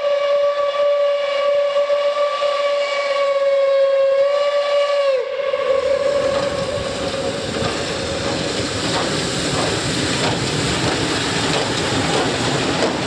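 Class 01 steam locomotive's whistle sounding one long steady note that slides down in pitch as it cuts off about five seconds in. Then the locomotive and its coaches roll past close by, with steam hissing and the rush and clatter of the wheels.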